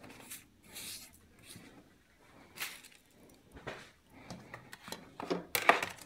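Small die-cut paper scraps being swept by hand across a craft mat: soft scattered rustles and light taps. A louder cluster of rustling and clatter from handling comes near the end.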